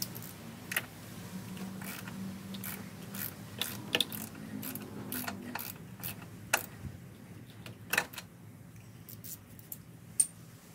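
Irregular metallic clicks and taps as the oil catch can and its nuts are fitted by hand to the strut-tower bracket, with a faint low steady hum underneath. The sharpest click, near the end, rings briefly.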